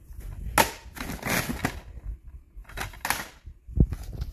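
Plastic DVD and Blu-ray cases clacking against each other as they are picked out of a pile, several sharp clacks with a dull thump near the end.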